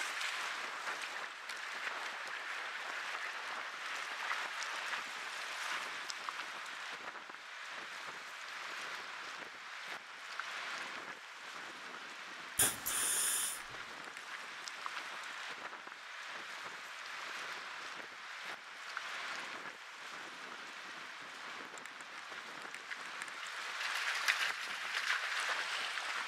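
Steady hiss of wind and water on an open lake, with one short, louder rush of noise about halfway through.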